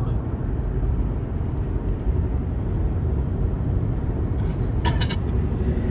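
Steady low rumble of a car on the move, road and engine noise, with a short cluster of sharp clicks about five seconds in.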